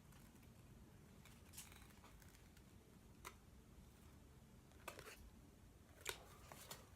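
Near silence with a few faint, short clicks and rustles of trading cards being handled and flipped through.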